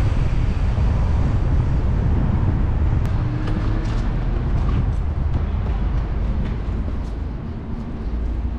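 A car on the move: steady low engine and road rumble, with a few faint ticks.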